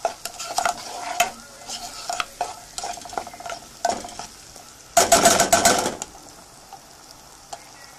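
Spatula stirring and scraping diced carrot, celery and onion soffritto frying in oil in a nonstick pot, with a gentle sizzle underneath. The strokes come in short scrapes, with the loudest run of scraping about five seconds in, after which only the sizzle is left.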